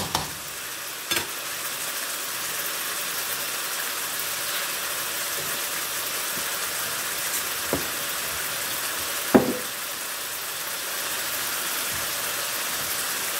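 Diced chicken and sliced onions sizzling steadily in a nonstick wok, with a spatula stirring briefly at the start. A few short knocks sound over the sizzle, the loudest about nine seconds in.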